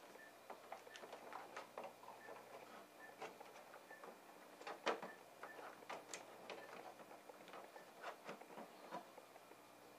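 Faint plastic clicks and taps as a CISS cartridge block is handled, seated in an inkjet printer's printhead carriage and pressed down, the loudest click about halfway through.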